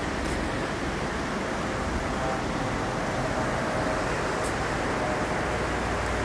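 Steady rushing roar of the Niagara River's fast whitewater rapids below the trail.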